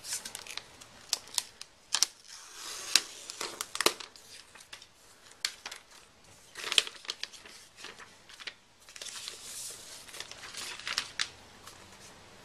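Thin protective plastic film being peeled off a new iPad by hand and crumpled: irregular crinkling and crackling in clusters, with short lulls between.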